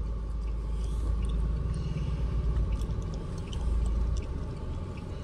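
Steady low rumble of engine and road noise inside the cabin of a Mahindra Scorpio S11 SUV on the move.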